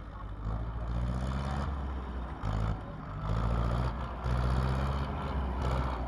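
Zetor tractor's diesel engine running hard under throttle, its note surging and dropping back several times.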